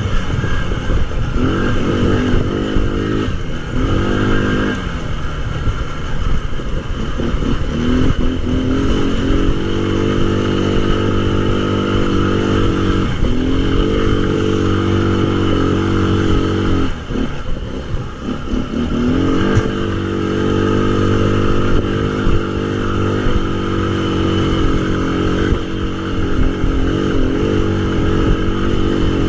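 Tao Tao 200cc ATV engine running under throttle. Its pitch drops and climbs back up several times as the throttle is let off and opened again, with the longest dip a little past the middle.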